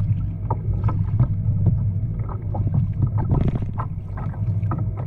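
Water sloshing and splashing against a kayak's hull, with wind rumbling on the microphone.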